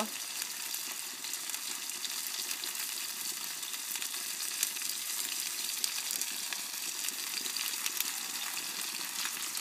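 Food sizzling in a hot pan on the grill: a steady crackling hiss.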